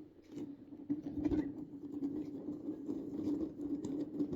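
Plastic fidget toys being handled: a run of small light clicks and rustles over a steady low hum.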